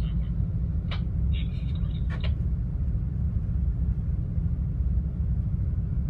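Steady low rumble aboard a container ship under way, with a couple of brief faint higher sounds about one and two seconds in.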